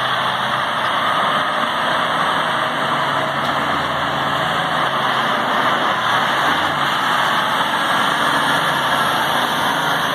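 Caterpillar 773F off-highway haul truck driving by, its C27 V12 diesel engine running with a steady drone.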